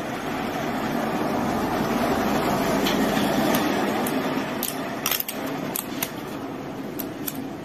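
Scattered small sharp clicks and taps of a smartphone's flex cable and plastic parts being handled and pressed into place, over a steady rumbling background noise that swells during the first few seconds and then eases.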